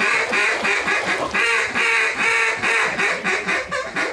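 Duck calls blown in a loud string of quacks, some short and quick and some drawn out, to bring circling ducks in to the decoys.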